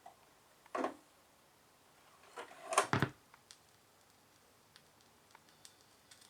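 Handling noises on a Sony PS-T20BS turntable: a short scrape a little under a second in, then a louder clunk about three seconds in.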